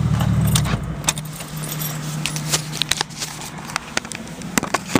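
Car engine running, its low rumble dropping away about a second in, then keys jangling with scattered small clicks and rattles inside the parked car.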